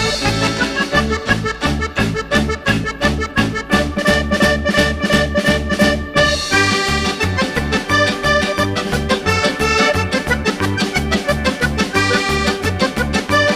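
Background music led by an accordion, over a steady, quick beat and a bass line.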